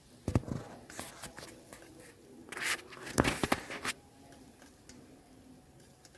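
Spoon stirring chopped onion, carrot, beans and green chilli in a frying pan: a run of scrapes and clicks against the pan over the first four seconds, then only faint sound.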